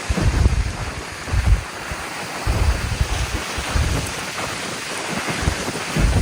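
Heavy rain hissing steadily, with irregular low rumbles of wind or thunder several times.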